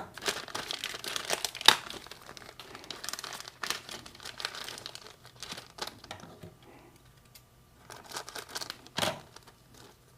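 Plastic packaging crinkling and rustling as kit parts are handled, in many short irregular bursts, busiest in the first half, with a brief rustle near the end.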